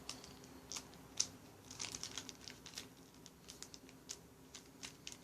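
Faint crinkling and small taps of foil-wrapped trading card packs being handled and pressed one after another, felt for thickness to find the packs holding the hits.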